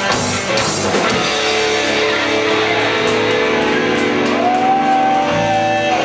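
Live rock band with electric guitars: drums and guitars hit together for about the first second, then a held chord is left ringing with long sustained guitar tones, one of them sliding up in pitch past the middle.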